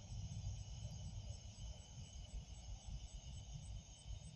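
Wind rumbling on the microphone over a steady, high-pitched chorus of evening insects, with a faint pulsing trill at about four beats a second.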